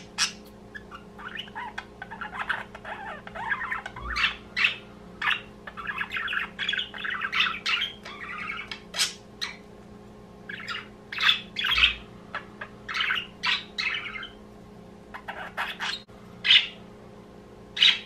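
Budgerigars chattering: a run of warbling mixed with sharp chirps and squawks through the first half, then separate short, loud calls about once a second.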